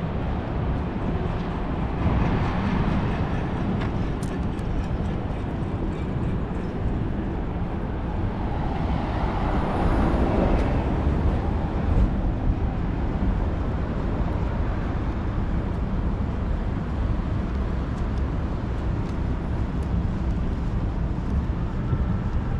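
Downtown street ambience: a steady low rumble of traffic, with one vehicle passing by, growing louder and then fading about ten seconds in.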